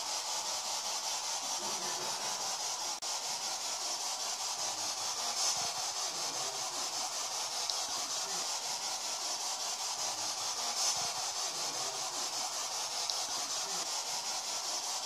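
A steady high hiss, with a slight swell about every five seconds.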